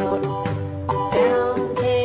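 Background music: a tune of short pitched notes that changes note every fraction of a second.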